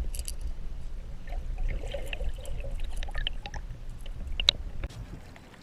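Water splashing and trickling at the side of a fishing boat, over a steady low rumble, with a few sharp clicks.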